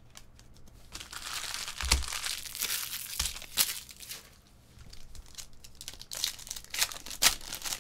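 Crinkling and tearing of a trading-card pack wrapper being ripped open and the cards pulled out, in two stretches of rustling with several sharp crackles.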